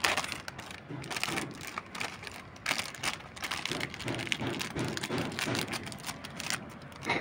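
Scissors cutting open a foil-lined plastic snack packet: the crinkling of the handled bag with many small, irregular clicks and snips.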